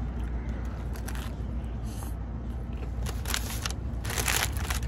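Crunching and chewing of a crispy hard-shell taco, in a few crackly bites, the loudest near the end, over a steady low rumble of traffic.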